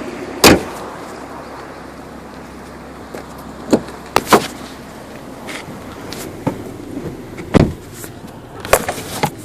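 The idle of a Volvo S80 2.5T's turbocharged five-cylinder engine dies away as it is switched off. Then come scattered sharp clicks and knocks, the loudest about half a second in and others around four, seven and a half and nine seconds.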